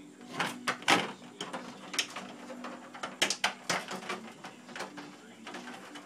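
Irregular clicks and knocks of pliers working heat-softened plastic off a mini fridge door, over a low steady hum.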